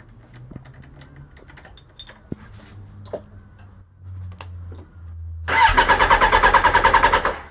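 Suzuki Bandit 1200's electric starter cranking its four-cylinder engine in a fast, even chug for nearly two seconds, then stopping without the engine catching; the bike has not been started in weeks. Light clicks at the handlebar controls come before it.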